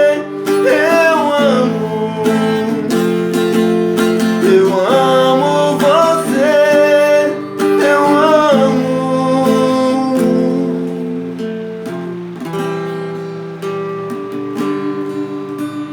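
Acoustic guitar strummed to close a sertanejo song, with a wordless sung melody gliding over it in the first half. The playing gets gradually quieter over the last several seconds.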